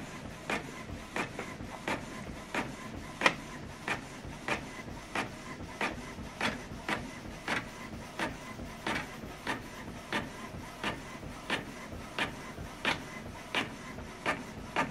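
Canon PIXMA MG3650 inkjet printer printing the second side of a double-sided page as the sheet feeds out, with a steady run of short clicks about two or three a second.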